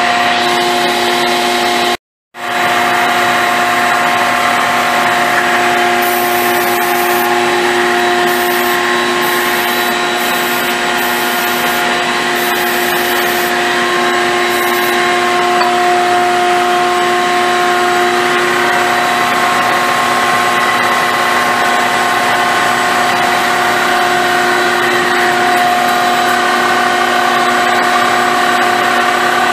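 Car engine idling steadily with a steady hum, its crankcase sealed off so that blow-by builds pressure and pushes oil out at the leak. The sound cuts out completely for a moment about two seconds in.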